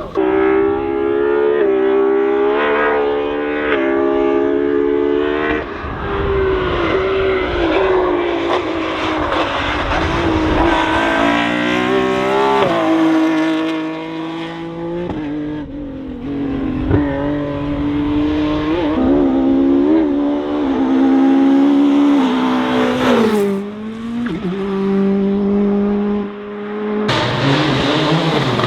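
Rally car engines driven hard on a stage, revving up and dropping in pitch again and again as they change gear, with one sharp bang partway through.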